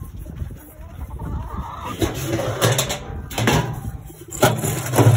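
Pellet feed being scooped out of a metal feed bin into a metal bowl: a series of sharp metallic clatters and knocks mixed with the rattle of pellets.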